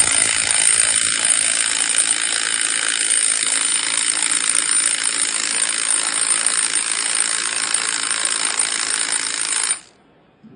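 Milwaukee M12 stubby cordless impact wrench hammering without a break for about ten seconds while tightening a bolt on a torque tester, then stopping abruptly near the end. The run brings the bolt to about 200 foot-pounds.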